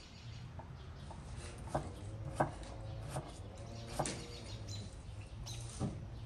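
A few light knocks and clicks, spaced irregularly, over a low steady hum.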